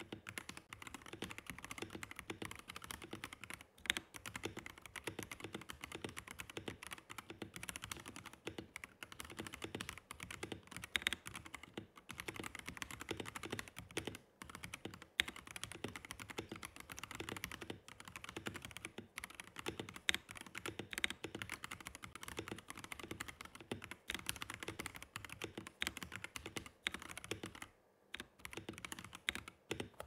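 Akko PC75B+ mechanical keyboard being typed on at about 80 words a minute, producing a dense run of keystrokes. The letter keys are stock Akko CS Jelly Pink linear switches and the modifiers are lubed Glorious Panda tactile switches. The typing breaks off briefly near the end, then stops.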